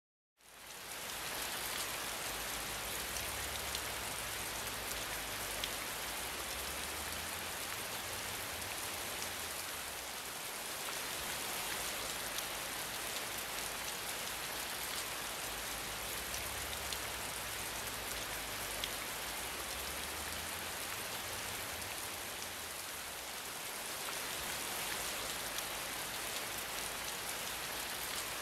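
Steady rain falling, individual drops heard as small clicks in the hiss. It fades in over the first second or two, then holds an even level.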